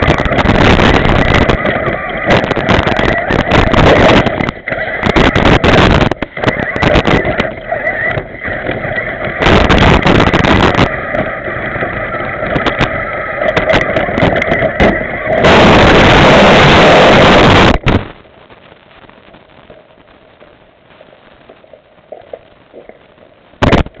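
Remote-control 4x4 truck's motor and drivetrain heard from a camera mounted on the truck, loud and distorted with a steady whine, as it drives over grass. About eighteen seconds in it stops abruptly and goes quiet, with a couple of sharp knocks near the end as the truck is handled.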